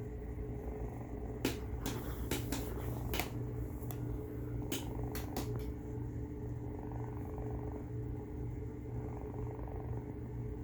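A domestic cat purring with a noisy, snoring rasp, a steady pulsing low rumble. A few sharp clicks come between about one and a half and five and a half seconds in.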